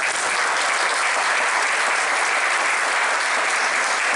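Audience applauding steadily, a dense round of hand clapping.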